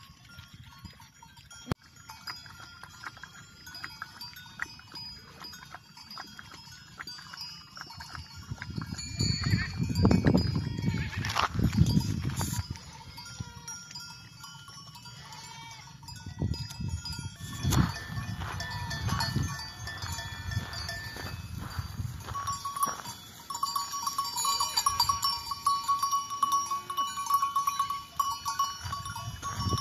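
Bells on a herd of grazing goats clanking and ringing, more steadily in the second half. Bursts of low rumbling, loudest about ten seconds in and again near eighteen seconds.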